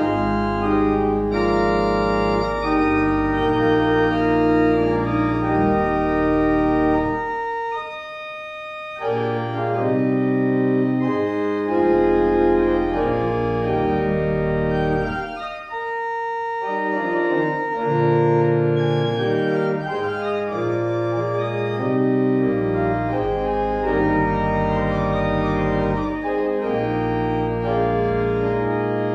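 Organ playing a slow piece in sustained, held chords, the low bass notes dropping out briefly twice.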